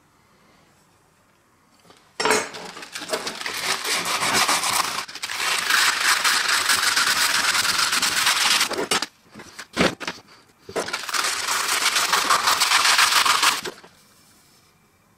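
Hand-sanding a steel knife blade with abrasive paper against a wooden bench: fast, continuous rasping strokes in two long spells, broken about two-thirds of the way through by a short pause with a couple of knocks.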